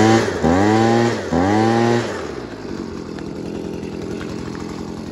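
Tanaka TRB24EAP leaf blower's 24cc two-stroke engine revved three times in quick succession, each rev climbing and then holding, then dropping back to a steady idle for the rest.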